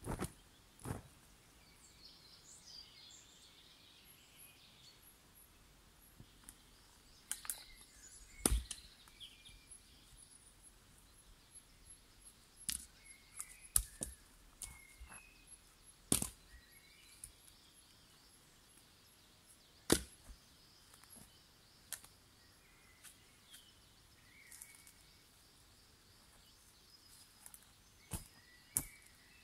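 Sawn firewood rounds knocking against one another as they are lifted and handled on a log pile: about a dozen sharp, separate wooden knocks at irregular intervals, the loudest about eight seconds in and again near twenty seconds.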